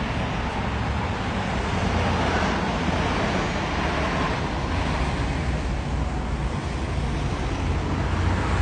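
Road traffic: a fire department ambulance and passing cars driving by, a steady low rumble of engines and tyres.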